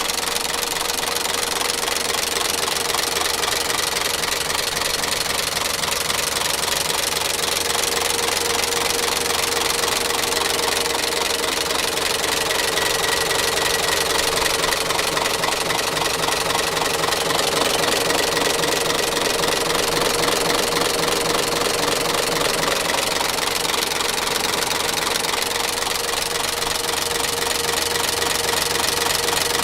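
Mitsubishi Fuso 6D22 turbocharged straight-six diesel engine running steadily, with a diesel clatter and a steady whine over it.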